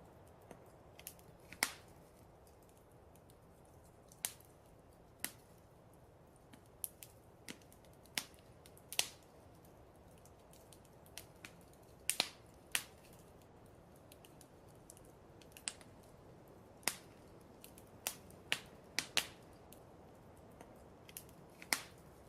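Wood fire crackling: irregular sharp pops and snaps, some louder than others, over a low steady hiss.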